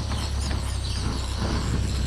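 Gas blowtorch burning with a steady low roar and hiss, heating an outboard motor's flywheel to help free it from the crankshaft.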